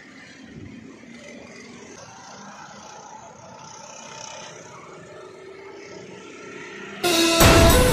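Go-kart engines running as karts lap a track, the engine note rising and falling. Loud music cuts in suddenly about seven seconds in.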